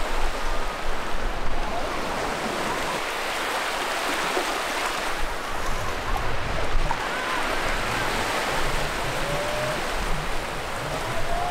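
Small ocean waves breaking and whitewash rushing through shallow water at the shoreline, a steady surf wash.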